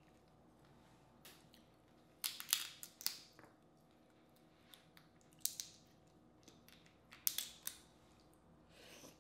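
Boiled crawfish shells being cracked and peeled by hand: three bursts of sharp crackling, a couple of seconds apart.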